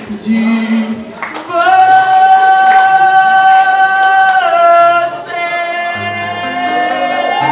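A singer holds a long high final note of a song over accompaniment; the note steps down slightly about four and a half seconds in, then low sustained accompaniment notes carry on under it.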